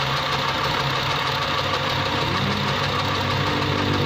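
Mini electric sewing machine's small motor running steadily, winding thread onto the bobbin.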